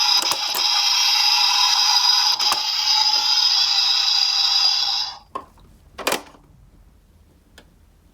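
Electronic ambulance siren sound from a toy ambulance minicar, a steady buzzy tone that cuts off abruptly about five seconds in. A few light plastic clicks and knocks follow.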